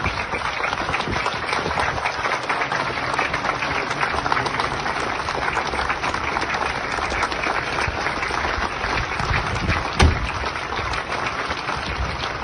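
A crowd clapping steadily, the dense patter of many hands, with one short thump about ten seconds in.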